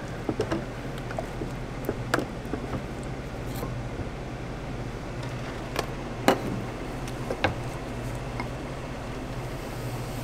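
Scattered light clicks and knocks of kitchen utensils as crepe batter is stirred in a plastic tub and ladled onto a crepe griddle, over a steady low hum of kitchen equipment. The sharpest knocks come a little past the middle.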